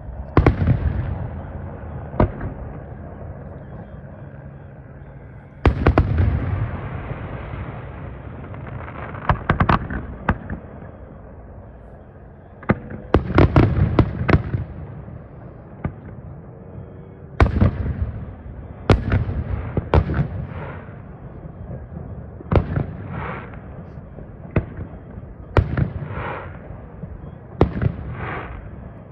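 Aerial firework shells bursting: single deep booms and quick volleys, each trailing off in a rolling echo, with a dense volley around the middle.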